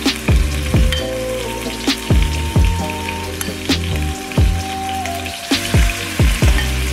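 Background music with a beat of deep kick drums that drop in pitch, under sustained chords, over the crackling hiss of garlic frying in oil in a non-stick wok.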